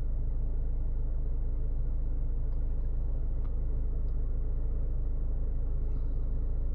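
Steady low rumble of a car heard from inside its cabin, with a few faint small ticks.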